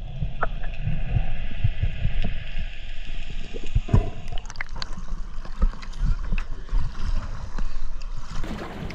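Muffled underwater sound through a camera's waterproof housing: low rumbling with irregular knocks and bumps as the camera is handled. Near the end the sound turns brighter and more open as the camera comes up through the surface.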